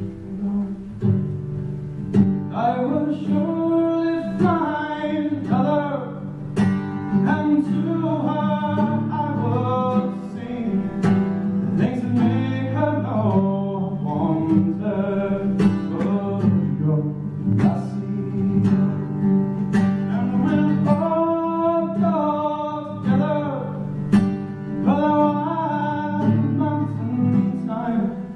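A man singing a slow song to his own acoustic guitar accompaniment, the guitar strings plucked in a steady rhythm under the vocal line.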